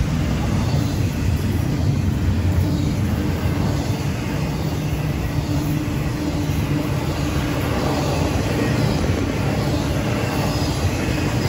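Florida East Coast Railway intermodal freight train's cars, carrying double-stacked containers and highway trailers, rolling past: a steady noise of steel wheels on rail.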